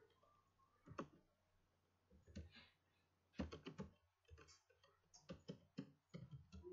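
Computer keyboard typing, faint: a lone keystroke about a second in, a few more around two and a half seconds, then a quick run of keystrokes from about halfway on.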